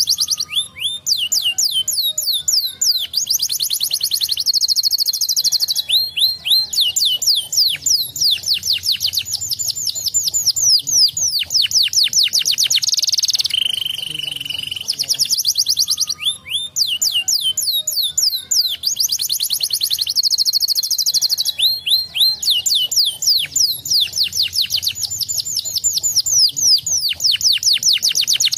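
Domestic canary singing a long, loud song of fast trills and rapid falling whistled sweeps, with brief buzzy rolls and short pauses. The same roughly 14-second song plays twice. It is a lure song used to prompt other canaries to answer and sing.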